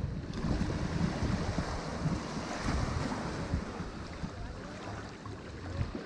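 Sea surf washing onto a sand and rock beach, a steady hiss of foam that swells about halfway through, under a gusty low rumble of wind.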